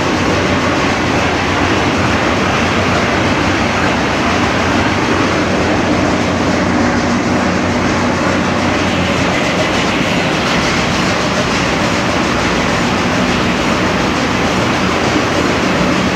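Ship's engine-room machinery running: the loud, steady, dense noise of large marine diesel engines, with a low hum underneath.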